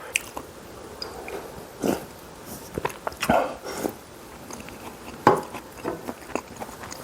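Close-up eating sounds: chewing and biting with irregular wet mouth clicks and a few louder smacking bursts.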